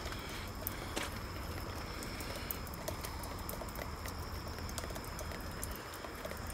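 Outdoor background: a steady hiss with scattered light ticks and pattering, over a thin, high, steady tone.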